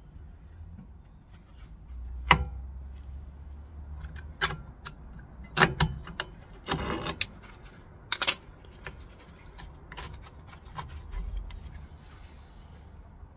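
Sharp metallic clicks and clinks, about half a dozen loud ones spread out, as long-nose pliers squeeze a drum-brake shoe's hold-down spring clip and snap it onto its pin.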